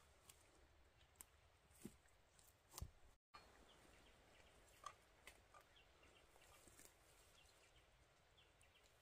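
Near silence: quiet outdoor ambience with a few faint scattered knocks and rustles, and faint high chirps in the second half.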